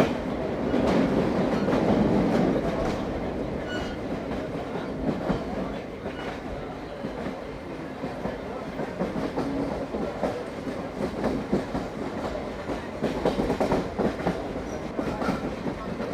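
Passenger train running, heard from aboard a coach: a steady rumble with the clickety-clack of wheels over rail joints, a little louder in the first couple of seconds.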